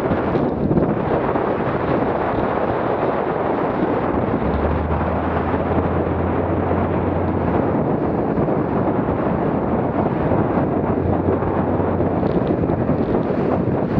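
Wind buffeting the microphone over the rush of a Boston Whaler motorboat's hull and spray through choppy water at about ten knots. The low drone of its outboard motor rises out of the noise twice.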